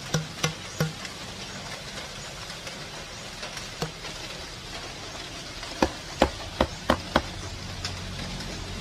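Hammer striking the end of a blue plastic tube to drive a plug in and seal the foam generator tube: five sharp, loud strikes about three a second a little past the middle. A few lighter knocks come in the first second.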